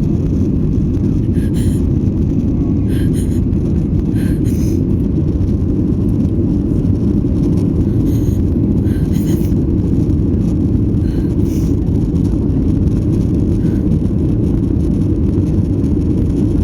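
Airliner cabin noise during the takeoff climb: the jet engines and rushing air make a loud, steady low rumble inside the cabin.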